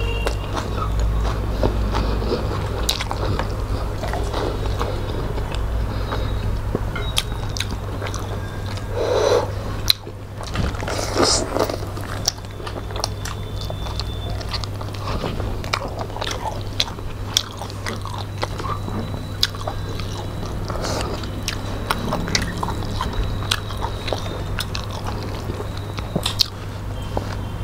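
Close-miked chewing and mouth sounds of two people eating rice with fish and chicken curry by hand, with many small wet clicks and smacks, over a steady low hum.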